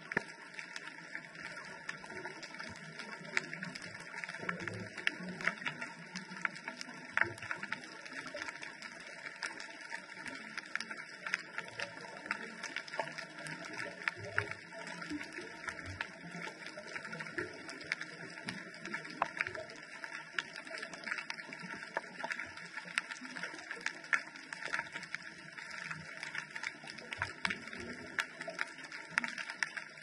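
Underwater ambience heard through a GoPro's waterproof housing: a steady hiss peppered with frequent small clicks and crackles.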